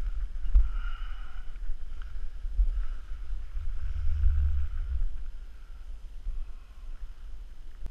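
Wind blowing across the microphone, a low gusty rumble that swells about four seconds in and then eases, with a light knock near the start.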